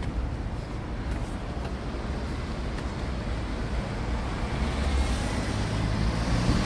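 Road vehicle noise: a steady low rumble that grows louder over the last couple of seconds.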